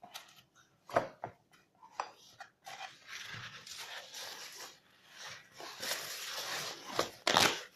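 Homemade glue slime being pressed and worked by hand: scattered sticky clicks and squelches, then a longer stretch of wet crackling, with a louder squelch near the end.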